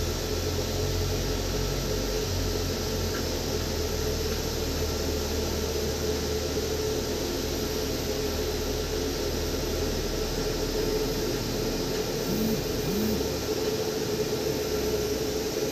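Steady hiss and hum of airport apron machinery with a constant whine, and two short rising squeaks about twelve seconds in.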